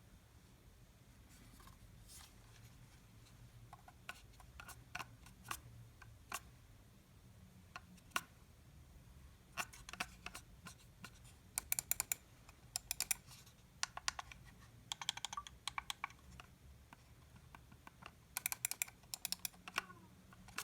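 Logitech MX Anywhere 3 mouse clicking: scattered single clicks at first, then several short runs of quick, rapid clicks.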